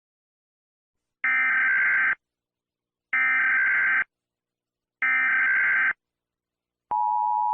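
Emergency Alert System SAME header: three bursts of shrill data tones, each just under a second long and about two seconds apart. Near the end the steady two-tone EAS attention signal starts, announcing a new alert.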